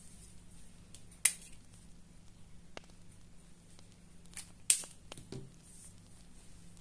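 Plastic cap of a highlighter marker clicking off and, about three and a half seconds later, snapping back on: two sharp clicks. A soft knock follows the second click as the marker is set down on the table.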